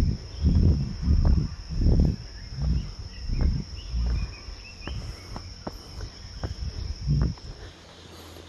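Footsteps on a dirt and stony trail, a step about every 0.7 s, with a few sharper crunches of stones underfoot in the second half. A steady high insect trill runs behind them and cuts off suddenly near the end.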